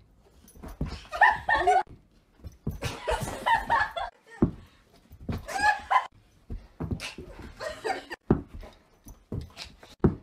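A dog excitedly vocalizing in short, wavering bursts, about once a second, as it leaps about in play, mixed with a person's laughter.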